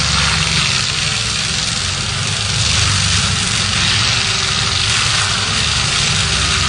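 BRON tracked forestry mulcher running steadily: a constant engine drone under a continuous high hiss.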